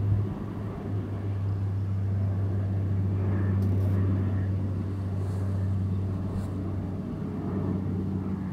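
Beech King Air 350 twin turboprop climbing out just after takeoff, its Pratt & Whitney PT6A-60A engines and propellers giving a steady low drone with a second tone an octave above.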